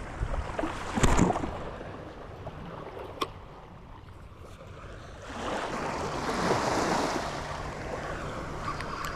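Surf breaking and washing up a beach, with wind buffeting the microphone. A loud gust or rush comes about a second in. A wave swells in past midway and is loudest at about six and a half seconds.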